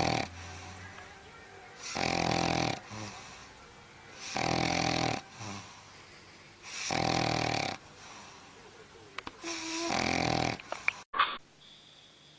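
A dog snoring: loud, rhythmic snores about a second long, one every two and a half seconds. The sound cuts off abruptly about eleven seconds in.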